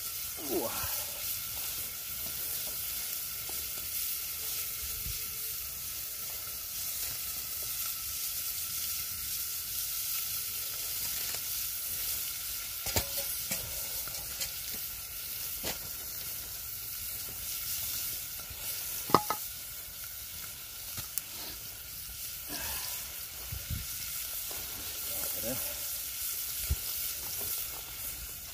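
Pork frying in a metal pot over campfire coals: a steady hissing sizzle as the meat is fried off. A few sharp pops and crackles break through, the loudest about two-thirds of the way in.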